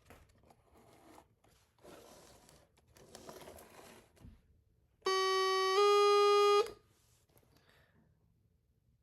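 Homemade electronic two-tone train horn circuit sounding once, about halfway through: a buzzy low tone that after under a second steps up slightly in pitch and gets louder, then cuts off after about a second and a half in all. Faint handling noises come a little before it.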